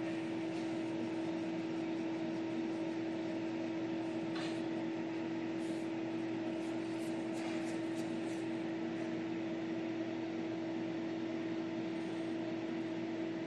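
Steady machine hum with one strong constant tone, with a few faint ticks in the middle.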